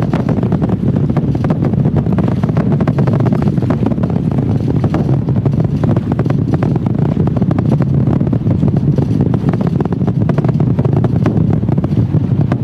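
Space Launch System rocket in powered ascent, its solid rocket boosters and RS-25 core-stage engines heard as a loud, steady crackling rumble.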